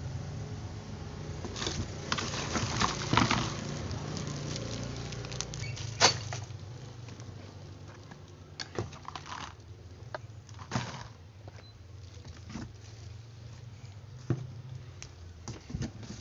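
Handling of a cardboard box of plastic oil bottles: scattered rustles, light knocks and clicks, busiest in the first few seconds, with one sharp knock about six seconds in. A steady low hum runs underneath.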